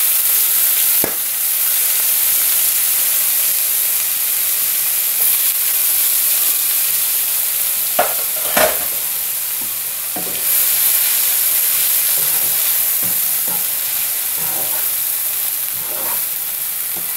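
Wet chopped bitter gourd sizzling loudly in hot oil in a wok, just tipped in from a strainer. A wooden spatula knocks and scrapes against the pan a few times as it is stirred.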